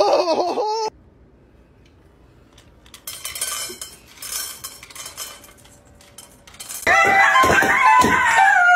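Dry kibble rattling and clinking into a stainless steel bowl from an automatic pet feeder, in several short spurts. Music with a melody comes in near the end and is the loudest sound; a voice and water splashing are heard briefly at the start.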